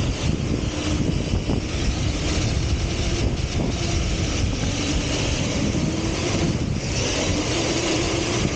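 Electric RC car driving fast over sand, its motor whine wavering up and down with the throttle under a steady rush of wind on the car's on-board microphone.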